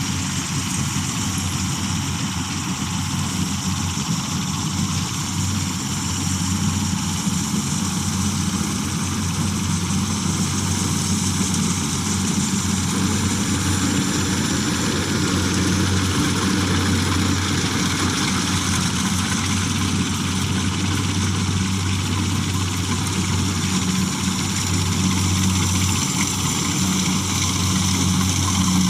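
Combine harvester's diesel engine and threshing machinery running steadily.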